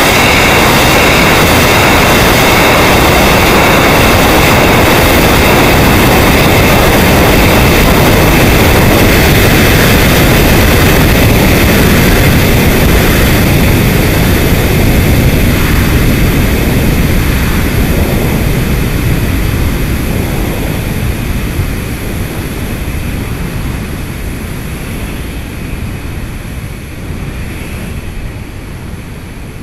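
Rocket in powered ascent heard through its onboard camera: a loud, steady rushing noise that fades gradually over the second half.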